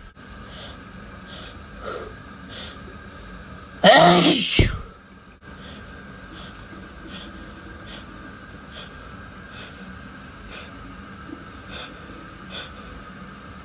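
One loud sneeze about four seconds in, its pitch dropping sharply as it ends, over a faint steady background noise.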